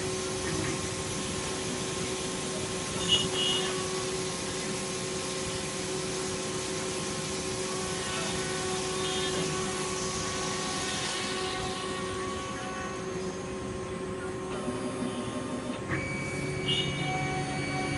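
Steady machine hum from a CNC plasma cutting table and its power supply standing ready, not yet cutting, with a few short high chirps.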